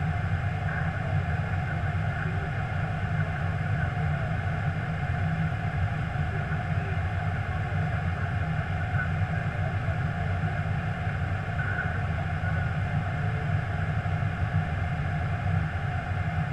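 Steady cockpit noise of an Airbus A321 in flight: an even low drone with a hiss of air over it, unchanging throughout.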